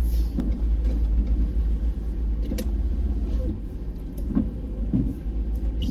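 Steady low rumble of a vehicle on the move, heard from inside the cab, with a few faint knocks.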